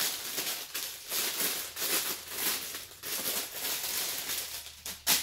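Clear plastic packaging bag crinkling and rustling in the hands as a piece of clothing is worked out of it, with a sharp click near the end.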